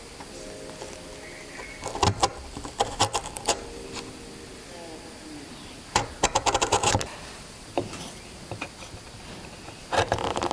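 Wood chisel pushed by hand, paring fibres from a wooden tenon: quick crackling snaps in three short bursts, about two, six and ten seconds in.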